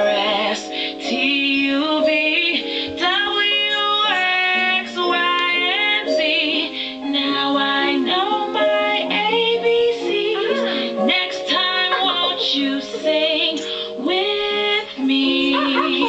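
A recorded children's song playing: a high singing voice with vibrato over a steady instrumental backing.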